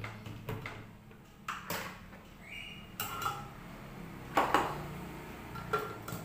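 Clinks and knocks of a spoon, a small plate and a blender jar as green chillies are spooned into the jar and its lid is fitted: a string of sharp separate taps, a few ringing briefly, the loudest pair about four and a half seconds in.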